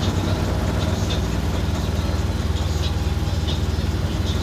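Sailboat's inboard engine running steadily, heard from inside the cabin, with a few faint ticks and rattles over it.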